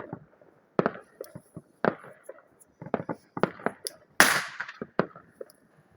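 Small firecrackers going off: a dozen or so sharp bangs in an irregular series, the loudest about four seconds in.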